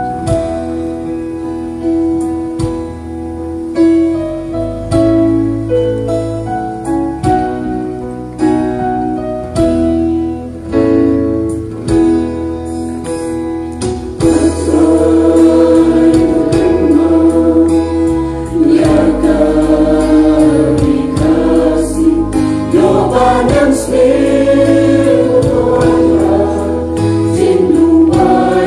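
Mixed choir singing a Khasi gospel song over keyboard accompaniment. For about the first half the keyboard plays on its own, then the choir comes in, clearly louder, about halfway through.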